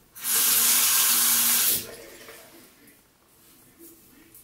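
Bathroom sink tap running in a steady rush for about a second and a half, then shut off, as the safety razor is rinsed between strokes.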